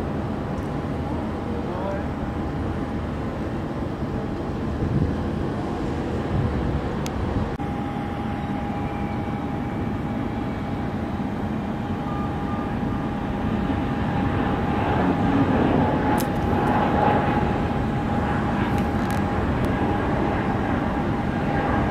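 Jet airliner engines at an airport: a steady rumble with a high, steady engine whine that grows louder in the second half as a jet powers along the runway.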